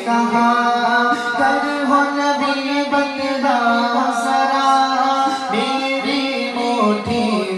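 A man's voice singing an Urdu naat (devotional praise song) through a microphone, in long melodic phrases with held, wavering notes.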